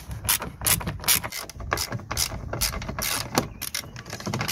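Hand ratchet clicking in short, uneven strokes as it backs out a T30 Torx screw that secures a 2003 VW Polo's door mirror.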